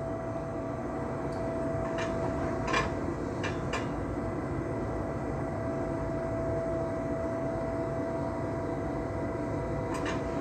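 Electric train running on the track, heard from inside the driver's cab: a steady running noise with a constant hum and a few sharp clicks.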